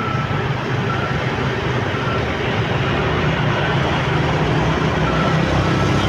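Steady rumble of a motorcycle ride in city traffic: the bike's engine and road noise with passing vehicles, plus a few faint short high tones.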